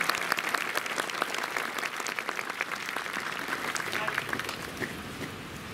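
Audience applauding, thinning out and fading near the end.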